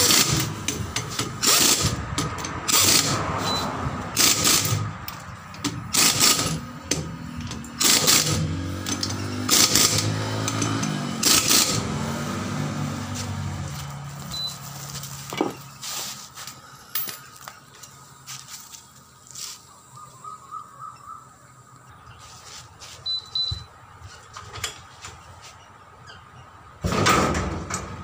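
Pneumatic impact wrench running on a mini truck's wheel nuts in short bursts, about one a second for the first twelve seconds or so, then only a few scattered clicks, with a louder burst of noise near the end.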